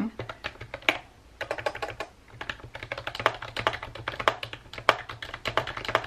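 Typing on a lightweight non-mechanical keyboard with round typewriter-style keycaps, the keys pressed hard: a quick run of key clicks that starts sparse and becomes a dense patter after about a second and a half.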